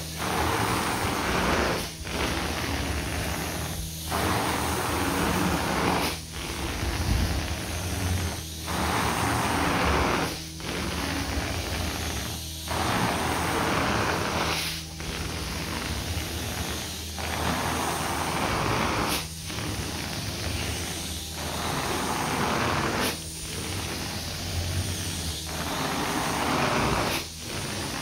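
Carpet extractor running with a steady hum while the cleaning wand is pulled through the carpet in repeated passes: a rushing spray-and-suction hiss that breaks off briefly about every two seconds as each stroke ends.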